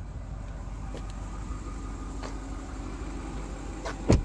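Steady low rumble of the parked BMW X5 heard from its back seat, with one sharp knock near the end.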